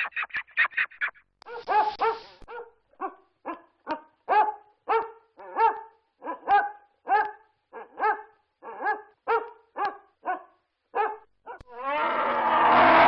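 Basset hound barking again and again, barks spaced about one and a half a second apart, after a quick run of short high calls in the first second. Near the end a loud, rough, continuous sound cuts in.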